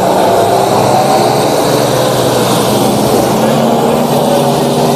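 Off-road 4x4's engine running hard in a mud pit, its note wavering slowly up and down with the throttle.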